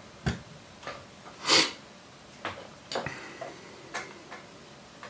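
Scattered small clicks and taps of fly-tying tools being handled at the vise, about seven in all, with one louder, longer knock about a second and a half in.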